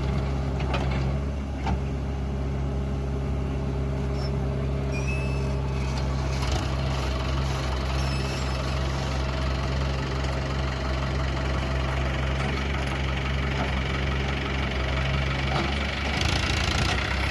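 Diesel engine of a backhoe loader running steadily under work, with a louder, harsher stretch near the end.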